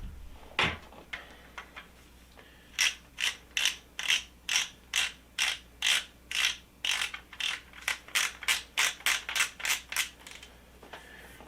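Shimano Curado DC baitcasting reel clicking as it is worked by hand: one click, then from about three seconds in a long run of sharp ratcheting clicks, about three a second, stopping shortly before the end.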